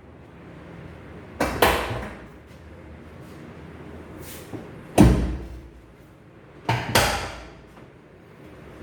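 Five loud, sharp knocks, each with a short ringing tail: a quick pair about a second and a half in, a single one at about five seconds, and another quick pair near seven seconds.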